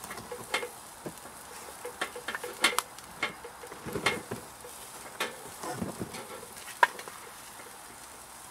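Pork back ribs sizzling on a charcoal grill, with irregular clicks and snips of metal tongs and kitchen scissors as the rack is cut into single ribs. A couple of sharper clicks stand out.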